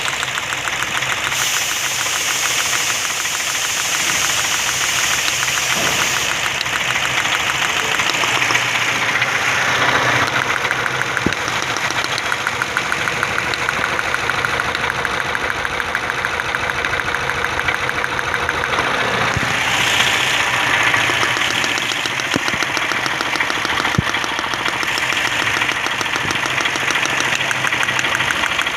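An engine idling with a fast, even ticking rhythm, the running being checked for a misfire. The tone shifts briefly a few times, near the start, about a third of the way in and around two-thirds through.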